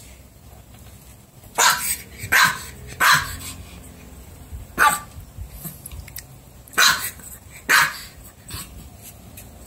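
Pomeranian puppy barking: six short, sharp barks, three in quick succession, then one on its own, then two more near the end.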